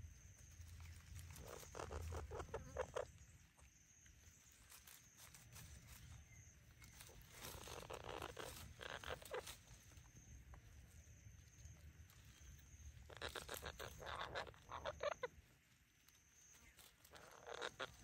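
Footsteps crunching through dry leaf litter on a forest floor, in four short runs of steps a few seconds apart, over a low rumble.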